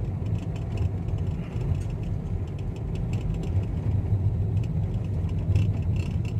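Car driving slowly, heard from inside the cabin: a steady low rumble of engine and tyres on the road, with faint light ticks and rattles.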